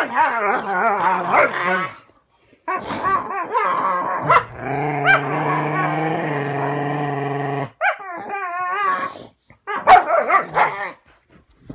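Dogs, a Standard Schnauzer and a Schnoodle, play-growling and whining in several wavering bouts, with one long, steady low call from about four and a half seconds to nearly eight.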